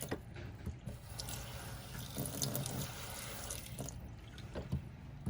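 Water running from a tap into a sink, with a few light clicks and knocks.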